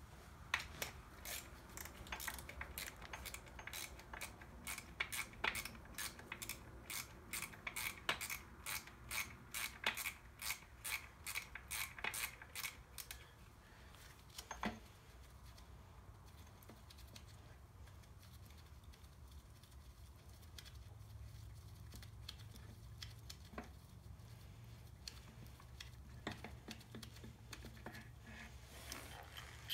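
Hand ratchet wrench clicking in quick, regular strokes for about 13 seconds as bolts are backed out, then a few scattered light metal clinks of parts being handled.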